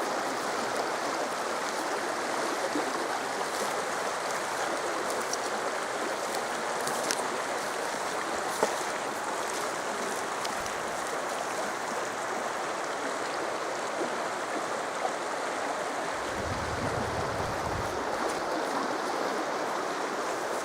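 Steady rushing of flowing water, such as a stream, with a few faint clicks and a brief low rumble a few seconds before the end.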